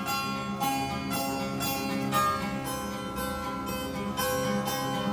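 Acoustic guitar strummed in a steady rhythm, about two to three strokes a second, chords ringing between the strokes.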